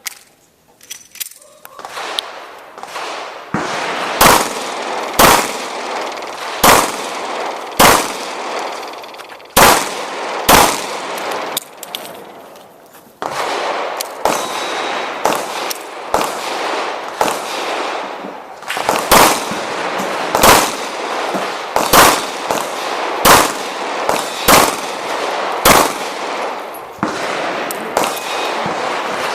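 Handgun shots fired one after another, roughly one a second, each sharp report ringing out, with a pause of a second or two about halfway through.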